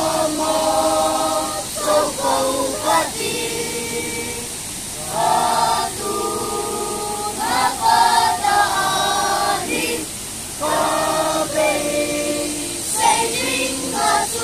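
A mixed group of children and adults singing together unaccompanied, in held notes and sung phrases with short pauses between lines.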